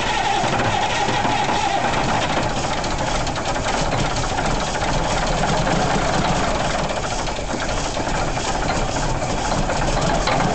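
A 1992 Kenworth W900's 425 hp Caterpillar diesel engine idling steadily, still cold, shortly after a cold start.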